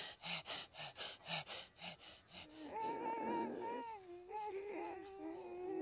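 A frightened man's quick, short breaths, about three a second, then from about three seconds in a long, wavering, high-pitched whimper.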